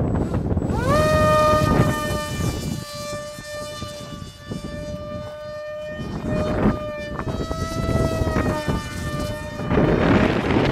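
RC airplane motor and propeller throttling up about a second in to a high, steady whine that holds with slight shifts in pitch, with gusts of wind noise on the microphone at times.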